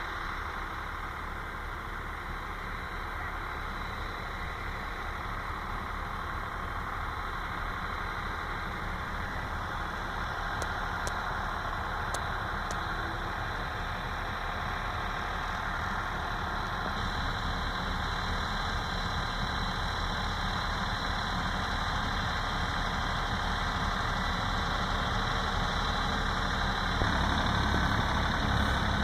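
Air-cooled three-cylinder diesel of a 1964 Deutz F3L 514 tractor running steadily, growing slowly louder, with a step up in level near the end.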